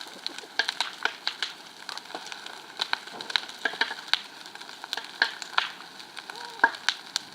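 Bonfire with a burning tyre, crackling and popping: irregular sharp pops, several a second, over a steady hiss. It is a tyre that makes the noise: as it heats up it shrinks, and its steel wires keep poking through.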